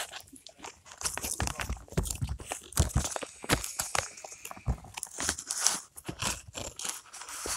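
Sheets of paper rustling and crinkling as they are handled right against the microphone, in a run of irregular crackles and rubs.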